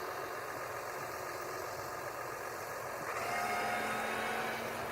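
A heavy vehicle's engine running steadily while it manoeuvres in snow, getting a little louder, with a steady hum added, about three seconds in.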